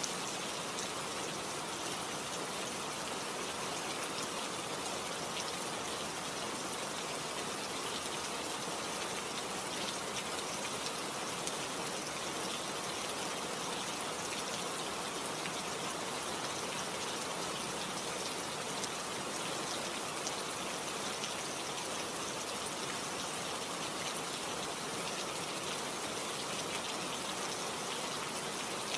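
Steady rain falling, an even hiss of many fine drop patters, unchanging in level.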